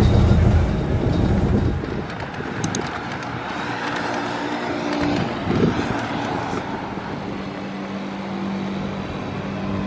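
Low rumble of a moving vehicle heard from inside for about the first two seconds, then outdoor street ambience with road traffic going by.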